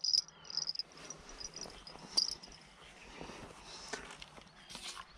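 Insects, crickets or grasshoppers, chirping in a high-pitched pulsing trill that fades out about halfway through, with a few faint clicks and knocks of handling, the sharpest about two seconds in.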